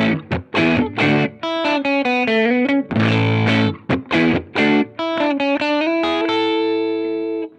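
Fender Jazzmaster electric guitar with Lollar Blademaster pickups, played through a Ground Control Serpens optical boost/compressor with its gain turned up to 3 and into a Strymon Iridium amp modeller. It plays a few strummed chords and picked single-note lines, ending on a long held note that cuts off near the end. The player thinks the compressor is driving the Iridium into light overdrive.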